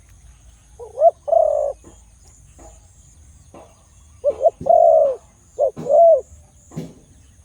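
A dove cooing: a short phrase of two coos about a second in, then a longer phrase of about four coos a few seconds later.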